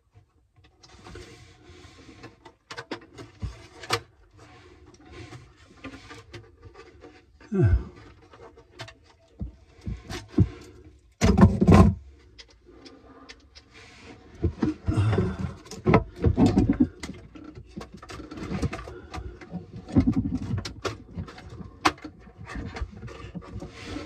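Handling noise as a circuit board is worked into a plastic alarm control panel housing: scattered small clicks, knocks and rustles, with a few louder bumps and rubs, the biggest about halfway through.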